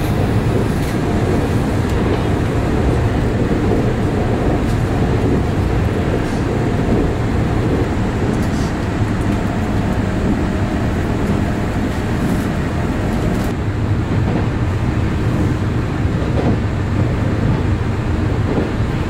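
Inside the cabin of a Taiwan Railways EMU3000 electric multiple unit running at about 100 km/h: a steady low rumble of wheels on rail. A faint whine joins in for several seconds midway.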